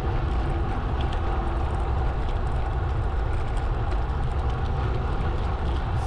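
Steady rush of wind buffeting the microphone, with a low rumble, from riding a gravel bike.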